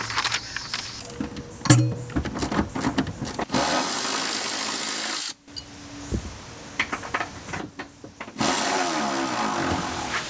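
Cordless power tool running in two bursts of about two seconds each, driving bolts for the subwoofer brackets into the truck floor, with clicks and knocks of parts being handled in between.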